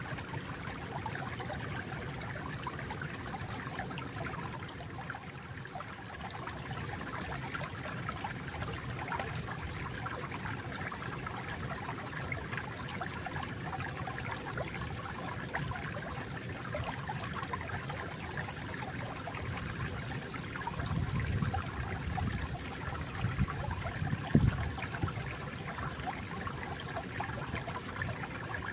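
Water flowing and trickling steadily, as in a small stream, with a fine bubbling texture. About 21 seconds in the low end swells for a couple of seconds, and a single low thump or splash follows a few seconds later.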